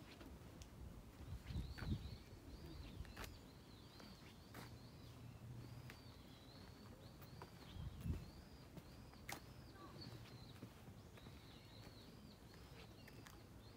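Small birds chirping faintly: a steady run of short, high, arching calls repeating every half second or so. A few scattered sharp clicks and two soft thumps, about two and eight seconds in, sound over a low rumble.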